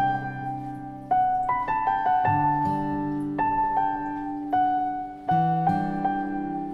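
Slow, gentle solo piano music: single notes and soft chords struck about once a second, each left to ring and fade.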